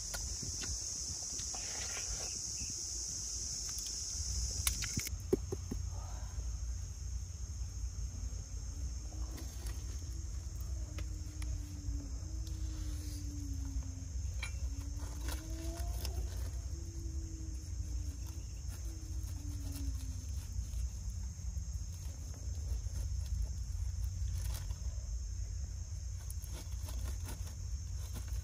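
Steady high-pitched insect chorus over a low rumble, with scattered faint ticks. In the middle, a faint low tone rises and falls several times.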